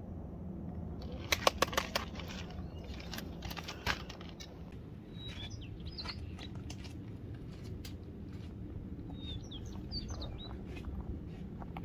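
A small bird calling in two short bursts of quick chirps, about five and about ten seconds in, over a steady low rumble. A run of sharp clicks and taps comes in the first few seconds.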